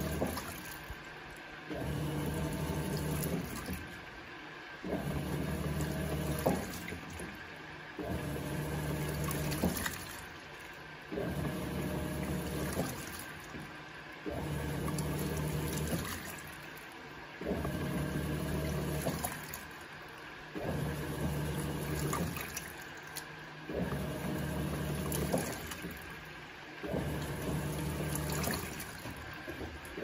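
Electrolux Turbo Economia 6 kg top-loading washing machine agitating its load. The motor runs in pulses of about one and a half seconds, roughly every three seconds, with water and clothes sloshing in the tub between strokes.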